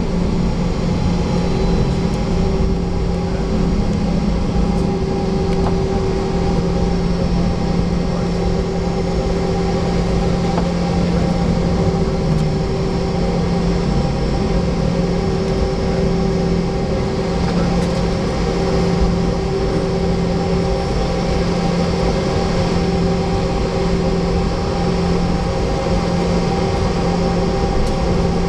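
Cabin noise inside a Boeing 717 taxiing, with its two rear-mounted Rolls-Royce BR715 turbofans running at low power. It is a steady low hum with a couple of higher steady tones over a constant rush.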